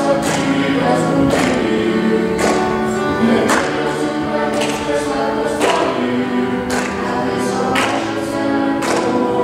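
A song with several voices singing over a steady beat, about one strong beat a second.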